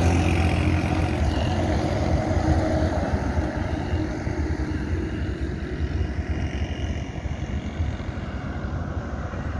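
A small pickup truck drives past on the road, its engine sound fading over the first second or two. Under it, a rough, flickering low rumble of wind on the microphone carries on throughout.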